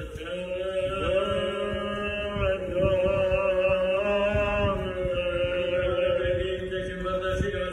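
A church choir sings Romanian Orthodox liturgical chant, the voices holding long sustained notes in harmony with slow changes of pitch, over a low rumble.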